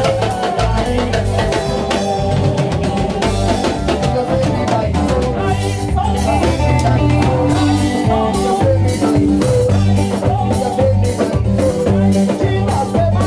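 Live band playing: a drum kit with cymbals keeping a steady beat over low bass notes and electric guitar, with a voice singing.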